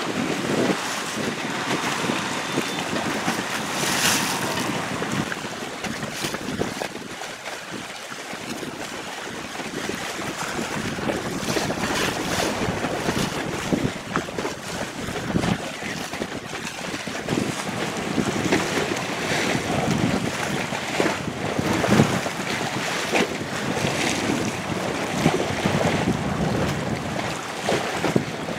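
Small boat running through rough water, with waves slapping and splashing against the hull and wind buffeting the microphone; irregular thuds and surges of noise throughout.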